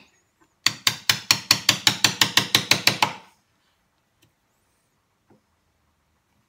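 A hammer tapping a chisel down into a half-blind dovetail socket, chopping out the waste wood. It is a quick run of sharp taps, about six a second, that stops after some two and a half seconds.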